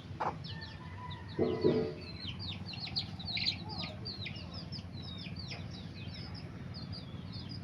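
A brood of chicks peeping busily, many short high cheeps falling in pitch, while the mother hen gives a louder, lower cluck about a second and a half in.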